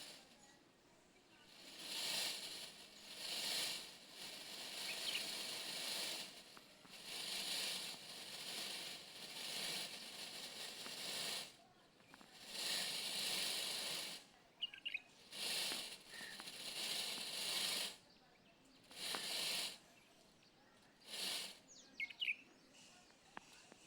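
Peacock shaking its fanned train and wings in courtship display: repeated bursts of dry feather rustling, each up to about two seconds long, with a few faint short bird chirps in between.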